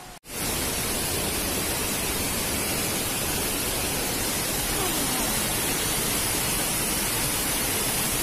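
Steady rushing hiss of a small waterfall close by, cutting in just after a brief gap at the start.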